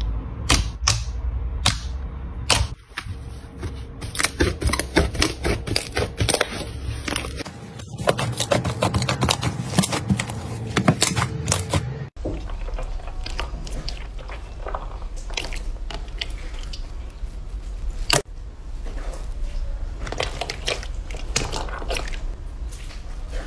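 Hands squeezing and poking slime, making a quick run of sharp crackling pops and clicks. About halfway through the sound cuts to a softer, denser crackle and squish of slime being pressed.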